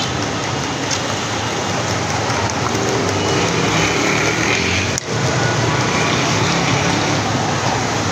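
Steady roadside street noise with traffic running, with a brief break about five seconds in.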